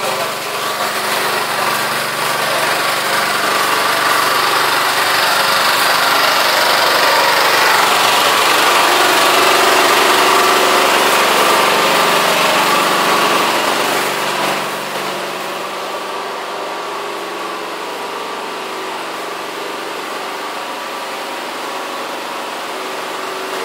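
A small engine running steadily, louder through the middle stretch and dropping to a lower, even level a little past halfway.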